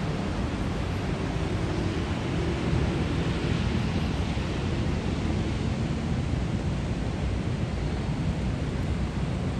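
Heavy rain falling steadily, a dense even hiss, over a steady low rumble.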